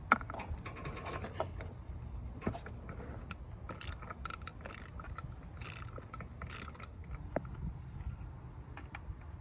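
Ratchet wrench clicking in uneven spurts as an old spark plug is worked loose and unscrewed from the engine head, with the socket and extension clinking.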